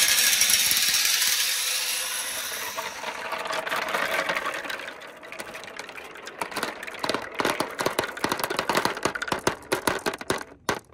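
Dozens of marbles poured onto a double steel rail, rolling down it together with a dense rushing rattle that fades over a few seconds. From about six seconds in comes a rapid clatter of many clicks: marbles knocking against wooden blocks on a wooden slope and dropping into a plastic tub. The sound cuts off near the end.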